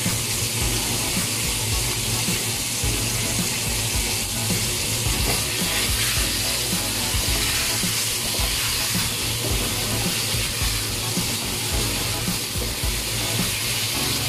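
Tomato wedges frying in hot oil in a wok, a steady sizzle, while a silicone spatula stirs them. Background music plays underneath.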